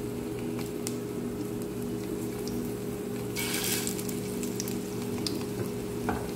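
Prawn vada patties frying in a shallow layer of hot coconut oil, with sparse faint crackles of sizzling and a short louder burst of sizzle a little past three seconds in as a second patty is laid into the oil. A steady low hum runs underneath.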